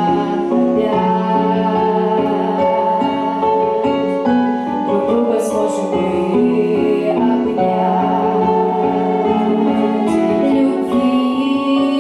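A girl singing a Russian song into a handheld microphone, holding long notes, over a piano accompaniment.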